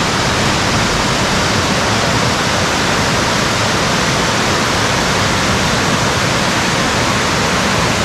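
Rushing water of a cascading mountain stream over rock: a steady, even rush.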